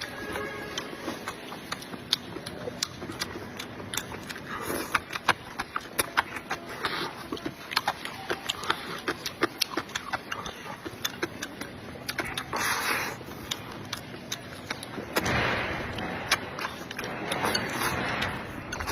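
Close-miked eating of chewy hotpot tofu skin: many sharp wet smacks and clicks of chewing, with a few longer slurps about twelve, fifteen and seventeen seconds in.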